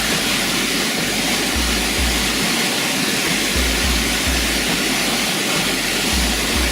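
Waterfall: the steady rush of falling water, with a low rumble that comes and goes beneath it.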